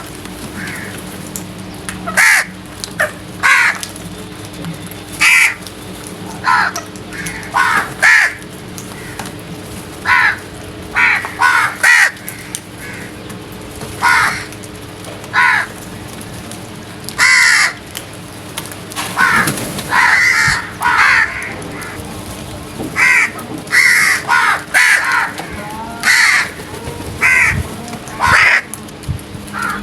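Crows cawing over and over, short caws coming every second or so, often two or three in quick succession.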